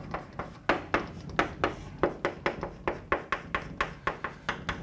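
Chalk writing on a blackboard: an irregular run of short taps and scrapes, several a second, as the chalk strikes and drags across the board.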